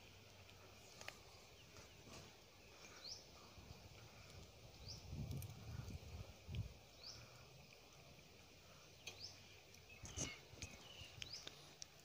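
Faint outdoor quiet with a bird repeating a short high chirp about every two seconds. Soft rustles and bumps come in around the middle and again near the end as a vine cord is wound around a live mud crab.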